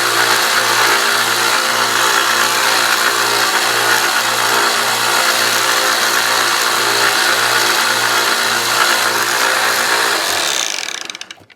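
Harbor Freight 1x30 belt sander running steadily while a kitchen knife blade is sharpened on its belt. It is switched off about ten and a half seconds in and winds down.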